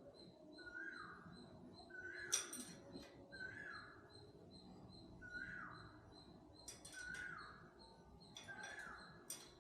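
A bird calling over and over, a short downward-sliding note about once every second and a bit, seven times. A few sharp clicks come in between, the loudest about two seconds in.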